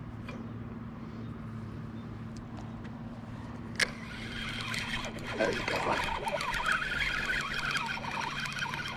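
A spinning reel being cranked as a small fish is reeled in on a float rig, against a steady low motor hum that stops about five seconds in. A sharp click comes just before four seconds, and from then on there is louder rattling and splashing as the fish nears the boat.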